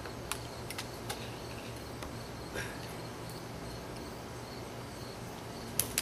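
Sharp clicks of a wooden baseball bat striking small dried soup beans, a few light ones in the first second and a loud pair near the end, over a steady background chorus of insects.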